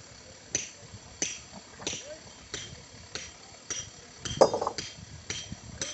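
Mason's hammer striking a steel point to bore a hole in stone by hand: a steady run of ringing metallic clinks a little under twice a second. One louder, duller knock comes about four and a half seconds in.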